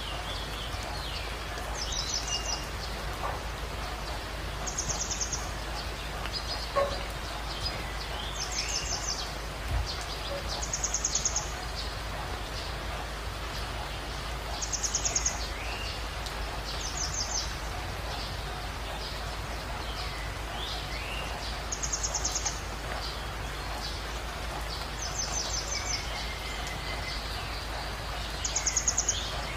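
Steady hiss of rain with a bird repeating a short, high, rapid trill every two to four seconds, and fainter whistled calls from other birds in between.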